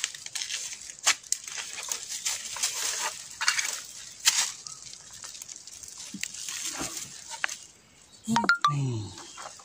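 A machete chopping into the soil and dry bamboo litter at the base of a bamboo clump to cut out a bamboo shoot: a run of irregular sharp chops with dry leaves rustling. Near the end, a short falling pitched sound.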